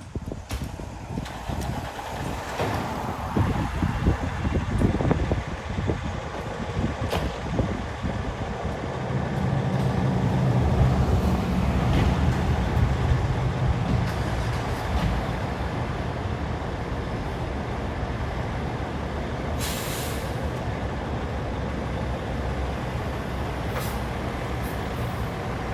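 Fire trucks' diesel engines running, the rumble turning steady and a little louder about nine seconds in. A brief hiss of released air comes about twenty seconds in, typical of air brakes.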